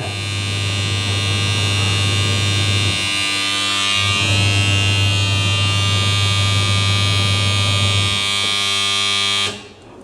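An LG semi-automatic washing machine's end-of-cycle buzzer sounds as a steady electric buzz, signalling that the wash timer has run out and the wash is finished. It cuts off about nine and a half seconds in.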